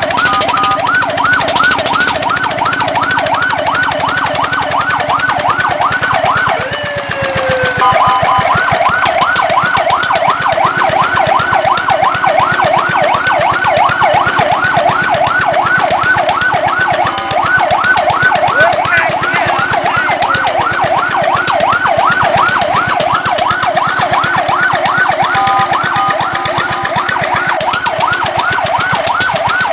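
Fire truck siren in a fast yelp, rapid rising and falling sweeps repeating several times a second. About seven seconds in the pattern breaks with a falling glide, then starts again. Short steady tones cut in a few times.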